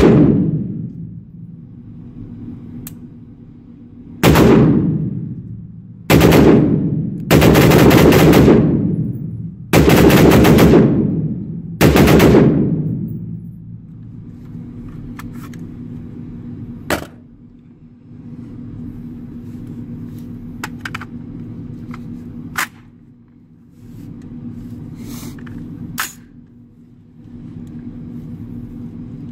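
AR-15 pistol firing at an indoor range, with a loud echo after every string. A single shot at the start, then several fast strings of shots over about nine seconds, the longest about two seconds long, in the pull-and-release rhythm of a Fostech Echo binary trigger. A few fainter single cracks follow later on.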